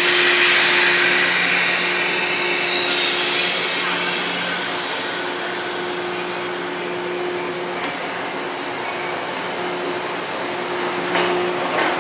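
JR East 185 series electric train standing at the platform: a sudden loud hiss of air that cuts off abruptly after about three seconds, over the train's steady electrical hum with two low tones. A run of sharp clicks comes near the end.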